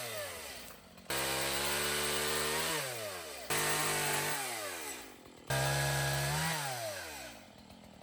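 String trimmer (strimmer) motor run in three short bursts, each starting abruptly at full speed, holding briefly, then winding down with a falling pitch as the trigger is released.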